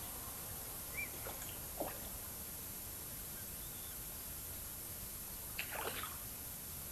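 Faint steady hiss with a few brief splashes of a hooked fish at the water's surface, the loudest cluster a little before six seconds in.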